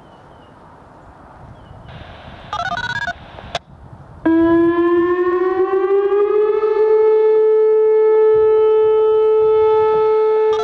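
A short burst of beeping tones over a radio scanner, then about four seconds in the Whelen WPS-2805 electronic warning siren starts: its tone rises in pitch for about two seconds, then holds a steady, loud tone.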